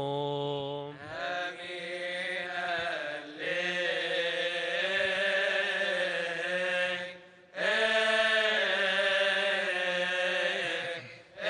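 A male voice chanting a slow, melismatic Coptic Orthodox liturgical chant, its long held notes wavering in pitch. The line breaks for short breaths about a second, three seconds and seven seconds in.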